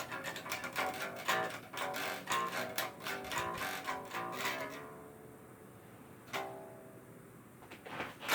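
Bass guitar being played: a quick run of plucked notes, then a few single notes struck and left to ring out.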